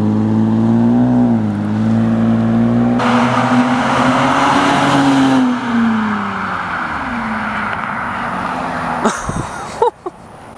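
Muffler-deleted Lexus IS300's 3.0-litre 2JZ straight-six exhaust, running at a steady note and then opening up into a loud raspy roar as the car accelerates away. The note rises, falls and fades as the car drives off, with a couple of sharp knocks near the end.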